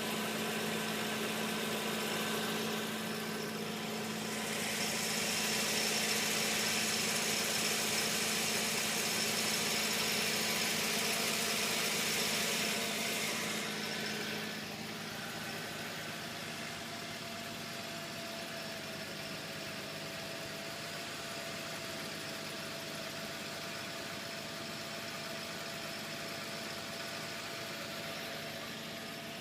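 Infiniti G35's V6 engine idling steadily, carrying the grinding, chirping, buzzing noise from the engine bay whose cause the owner has not found. A louder hiss rides over the idle from about four to fourteen seconds in, then the sound settles quieter.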